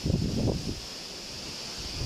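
Wind buffeting the microphone outdoors in uneven low gusts that ease about a second in, over a steady high hiss.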